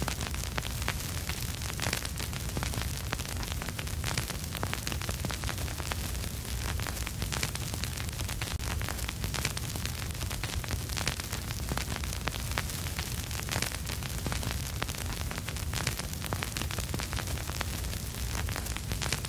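Vinyl record surface noise with no music: a dense, steady crackle of small clicks and pops over a hiss, with a low rumble underneath.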